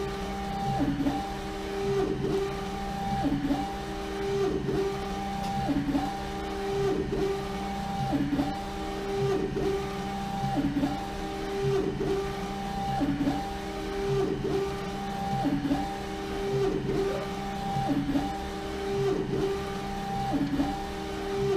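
LogoJet UVx60XL UV printer with rotary jig attachment printing a full wrap on a bottle. The print-head carriage shuttles back and forth, giving a steady motor whine that swells and dips about once a second as the carriage reverses at each end of its pass.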